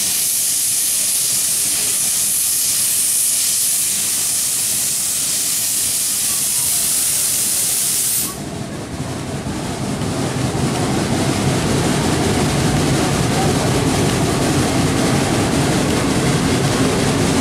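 Steam locomotive hissing loudly with escaping steam, the hiss cutting off suddenly about eight seconds in. After that the train's running noise fills in, lower and a little louder.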